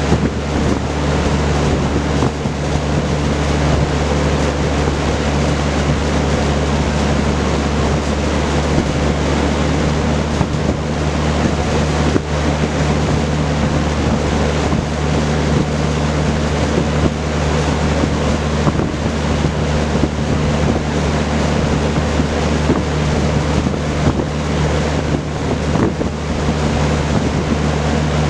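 Vintage Kenmore Roll-A-Matic 20-inch reversible box fan running steadily: the rush of air from its four-blade propeller over a low motor hum.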